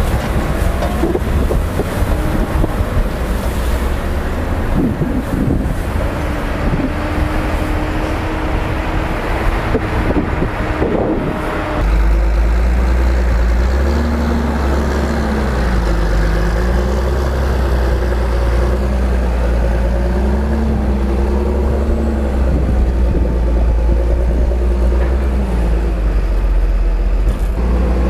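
Tractor engine and machinery running as a Krone TX 460 forage wagon unloads chopped maize onto a silage clamp. After a cut about twelve seconds in, a large John Deere tractor's engine runs with a strong low hum, its pitch rising and falling every few seconds as it pushes and packs the maize on the clamp.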